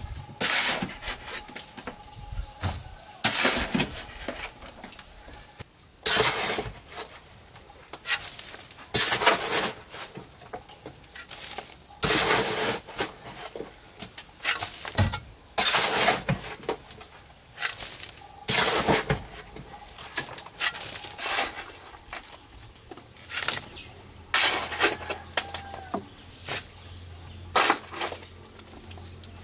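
Repeated scraping strokes of a long-handled hand tool through loose soil and grit on concrete, one about every two to three seconds.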